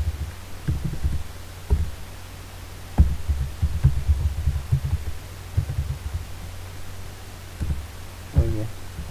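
Irregular dull, low thumps of keyboard typing, carried through the desk into the microphone, some single and some in quick runs, over a steady low electrical hum.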